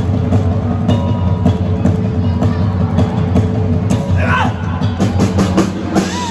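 Live band music led by a drum kit, a steady beat with many sharp drum hits over a sustained low bass. Audience voices call out about two-thirds of the way through.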